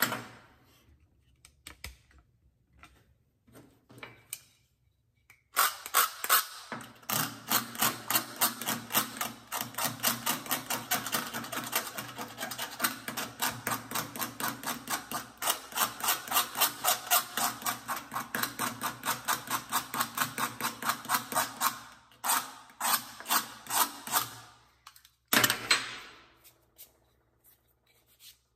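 Razor blade scraping a wooden hammer handle in quick, rhythmic strokes, about three to four a second, to take off sticker residue and shellac. The scraping starts a few seconds in, runs steadily, and stops with a few last strokes near the end.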